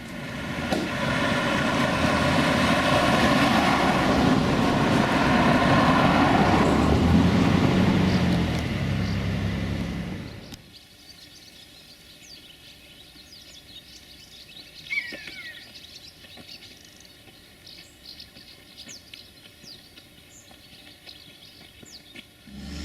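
A loud, steady mechanical running sound with a low pitched hum, engine-like. It cuts off abruptly about ten seconds in, leaving quiet open-air ambience with scattered small bird chirps.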